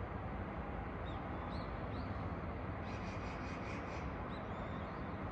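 Steady low city hum with birds calling over it: a few short rising chirps, and a quick run of scratchy notes about three seconds in.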